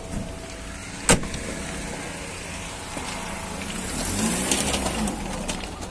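A Lada Zhiguli car door is shut with a single sharp thump about a second in, followed by steady background noise.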